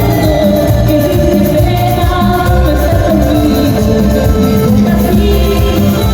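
Live band music with a steady, repeating bass beat and a melody held over it.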